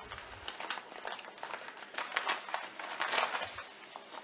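Plastic postal mailer bag crinkling and rustling in a run of irregular crackles as it is opened by hand and a cardboard box is slid out of it, busiest in the second half.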